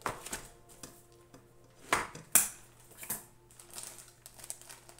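Clear plastic card-sleeve pages of a ring binder being turned and handled: crinkling and scattered clicks, the two loudest about two seconds in.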